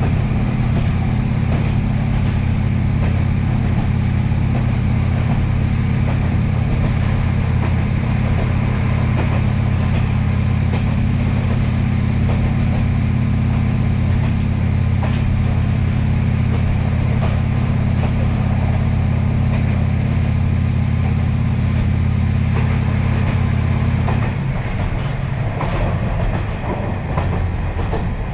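KiHa 40-series diesel railcar heard from inside while running at speed: a steady diesel engine drone under power over wheel-on-rail noise. Near the end the engine note drops away and the rail and wheel noise is left.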